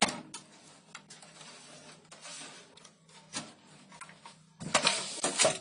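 Clicks and knocks of metal on metal as a computer power supply is pushed back and lifted inside a steel PC case, with a louder cluster of rattling clicks near the end.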